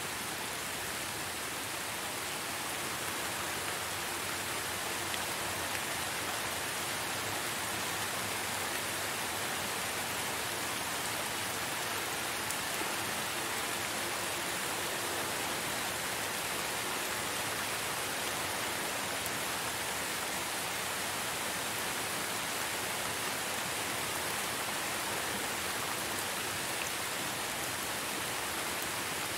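Steady rain, an even hiss that holds the same level throughout.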